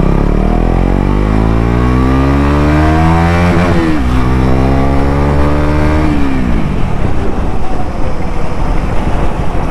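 KTM Duke 250's single-cylinder four-stroke engine through an aftermarket exhaust, heard from the saddle: revs climb under acceleration, drop sharply at an upshift about three and a half seconds in, and climb again. Around six seconds in the throttle is rolled off and the engine note falls away under wind and road noise.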